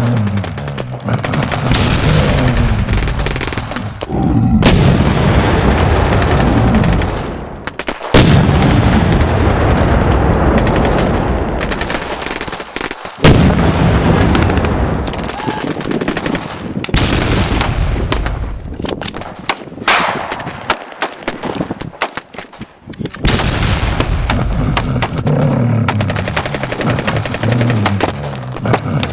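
Loud, near-continuous gunfire with machine-gun bursts and occasional booms, dense and noisy with a few brief lulls.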